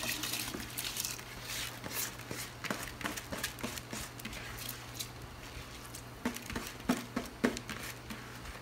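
Kitchen cooking sounds: irregular light clicks and a few soft knocks of a spoon and pot, as soaked rice goes into a saucepan of water, over a steady low hum. The loudest knocks come near the end.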